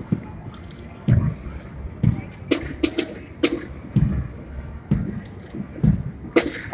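A marching parade unit keeping time: a low thump about once a second, with short sharp sounds and brief shouted calls between the beats.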